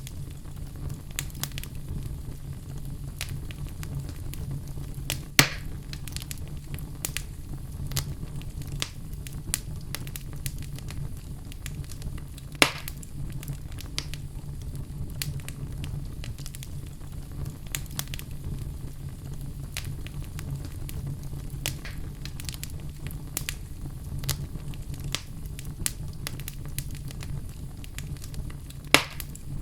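Fire crackling, with a steady low rumble under many small crackles and three loud pops: about five seconds in, about twelve seconds in, and near the end.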